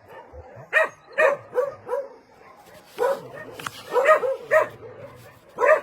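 Dog barking: about ten short barks in irregular bursts.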